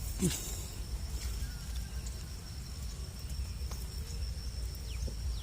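Insects calling in a steady, unbroken high-pitched trill, over a low rumble.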